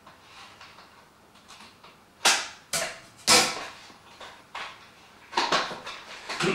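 Computer parts being handled, RAM modules going toward the motherboard: a series of sharp plastic clicks and knocks. The three loudest come two to three and a half seconds in, and a quicker cluster follows near the end.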